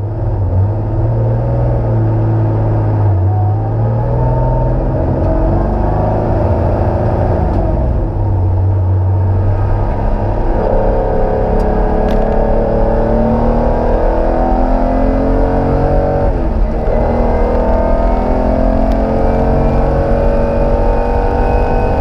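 Porsche 911 flat-six engine heard from the onboard microphone, running at low revs at first, then pulling hard with the engine note rising again and again through the gears, with a brief dip at a gearchange about two-thirds in.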